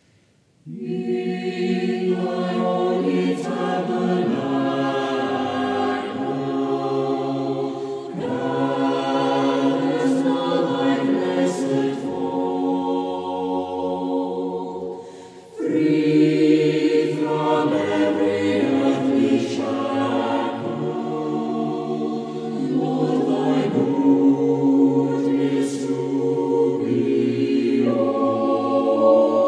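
Chamber choir singing a hymn in parts, with the reverberation of a large church. The voices come in about a second in, break off briefly about halfway, and resume for the next verse.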